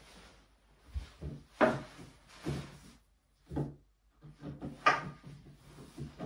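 Several wooden knocks and scuffs from a birch-plywood shooting table as a person sits down on its bench and sets his hands and arms on the top, with shuffling footsteps. The sharpest knocks come about a second and a half and about five seconds in.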